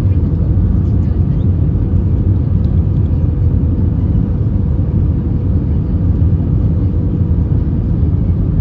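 Steady low rumble inside the passenger cabin of an Airbus A320, with a faint steady hum above it.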